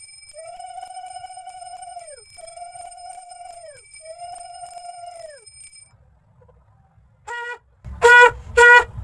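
Conch shell (shankha) blown at a home shrine: three long held notes, each dropping in pitch as it fades, then after a short pause three short, loud blasts near the end.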